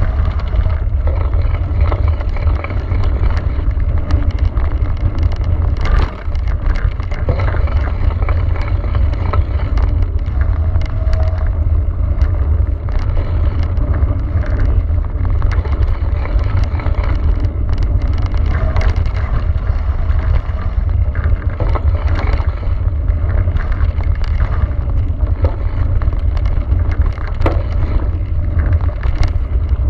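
Cube Stereo full-suspension mountain bike descending a loose gravel trail: heavy wind rumble on the handlebar camera's microphone over the steady noise of the tyres rolling on gravel, with frequent short rattles and clicks from the bike and stones.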